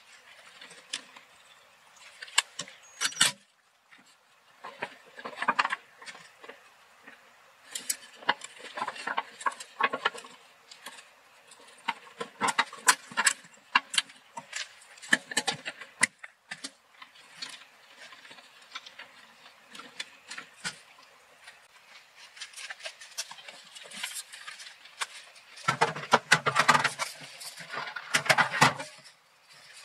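Irregular clicks, rattles and rustles of hands working on a blower motor and its wiring: connectors and loose wires being handled and parts fitted back on. A louder, denser stretch of handling noise comes near the end.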